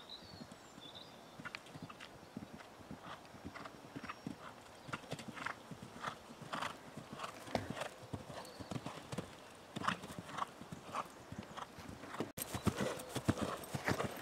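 Hoofbeats of a ridden horse moving over grass turf, a run of irregular short strikes. About twelve seconds in they jump suddenly louder and closer.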